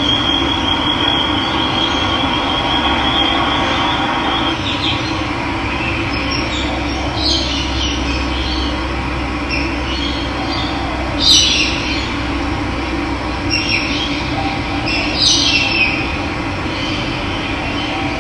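Steady rush of running water with wild birds calling over it: a rapid trill for the first four seconds or so, then a string of short chirps, the loudest about eleven seconds in.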